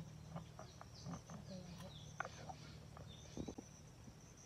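Rural outdoor ambience: a steady high insect drone with short falling bird calls, and a few light clicks and knocks scattered through.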